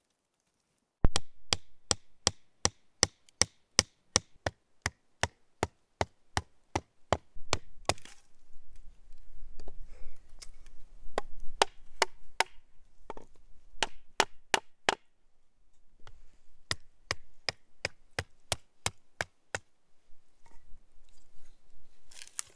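Sharp chopping strikes into a wooden branch as it is split lengthwise, about three a second and then more irregular, with a short pause before a final run of strikes.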